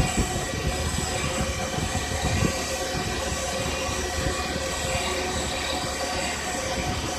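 Wasino CNC milling machine cutting a plastic-injection mould: several steady high tones over a dense, fast rattle, running evenly.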